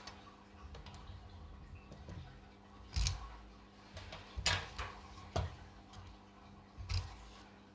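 Light, sharp clicks and taps of a small magnetized screwdriver and tiny screws against a phone's metal frame during disassembly, four or five in all, over a faint steady hum.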